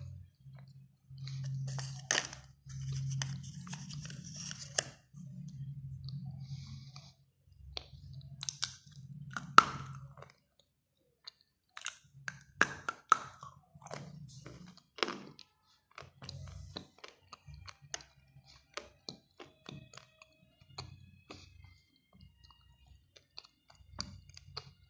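Grey clay crunching and crackling as fingers break and crumble it over a bowl of water, with irregular sharp clicks and a loud snap near the middle. A low hum comes and goes underneath.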